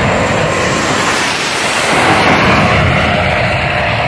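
Top fuel dragster's supercharged nitromethane V8 running at full throttle, a loud, harsh, crackling engine sound. Its pitch falls about two seconds in.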